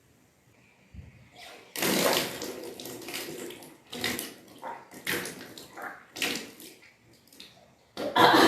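Salt water being vomited up during kunjal kriya (yogic cleansing by induced vomiting), splashing down in gushes: a long gush about two seconds in, several shorter ones, and the loudest near the end.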